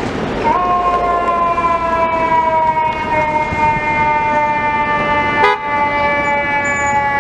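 Fire truck siren: one long wail that jumps up in pitch about half a second in, then slowly falls over the next several seconds, over street noise. A brief sharp click comes near the end.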